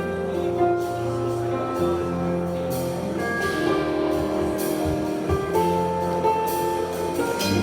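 Instrumental music: held chords over a bass line, with a few cymbal strokes.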